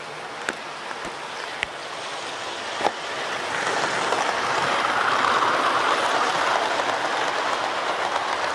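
Hornby Railroad Class 37 model locomotive running along the track, a steady rushing noise of motor and wheels that swells about three seconds in and is loudest near the middle. A few light clicks come in the first three seconds.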